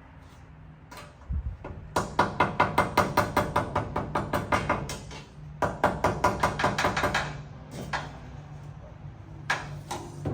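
Light hammer taps on a thin chrome trim piece, tapping out a dent: two quick runs of about six taps a second, with a few single knocks before and after.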